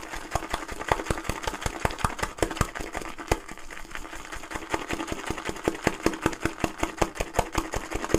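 Proraso boar-bristle shaving brush whisking Cella shaving soap in a lathering bowl: a fast, even run of wet swishing strokes, several a second, as the lather builds.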